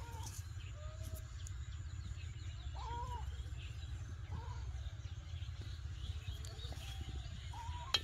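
Rural outdoor ambience: a steady low rumble with several short, arching animal calls, one every second or two. A single sharp click near the end.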